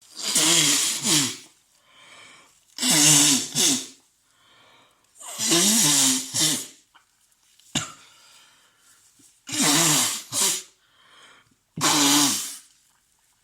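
A man with a head cold sneezing five times in quick succession, each sneeze loud and voiced, with quieter breaths and sniffs between them.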